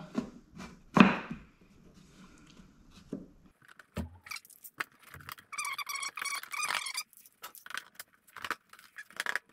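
Wooden frame end piece knocked into place, then one-handed bar clamps set on the frame, their triggers squeezed in a rapid run of metallic clicks about halfway through, with scattered clicks and knocks after.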